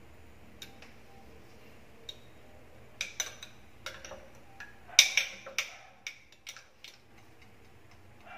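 Metal spoon stirring in a glass jar mug of water, clinking against the glass: a few light ticks, then a quick run of clinks from about three seconds in, the loudest around five seconds.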